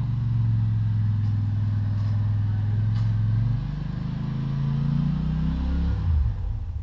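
Small riding-tractor engine running under load while pushing snow, steady at first, its pitch dropping about three and a half seconds in, then rising and falling again near the end.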